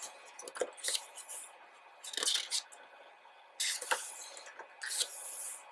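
Pages of a large, thick photobook being turned by hand: about four short swishes of paper, each with a light rustle or tap as the page is lifted and laid over.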